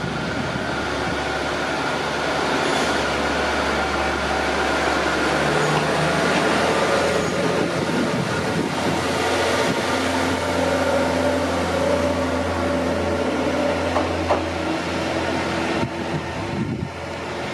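KiHa 40 diesel railcar pulling out and passing close by. Its engine runs steadily, its note rising in steps as it gathers speed, and the sound eases near the end as the train moves off.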